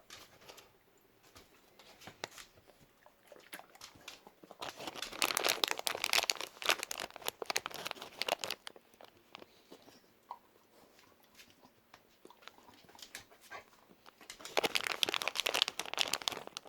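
A dog crunching a hard treat: two bouts of crackly chewing, the first about four seconds long and the second shorter near the end, with scattered small clicks between.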